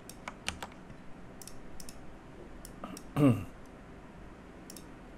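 Computer mouse and keyboard clicks: a scattering of short, sharp clicks, several in quick succession. About three seconds in, a brief voiced sound falling in pitch is the loudest thing heard.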